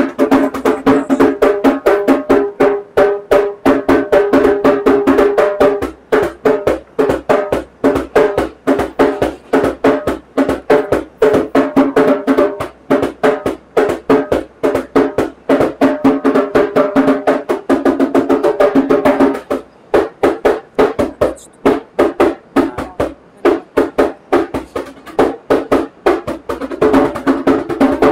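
A drum played fast with bare hands: rapid strokes and rolls in a steady groove, with a ringing pitched drum tone under the strikes. It eases off briefly twice, about six and about twenty seconds in.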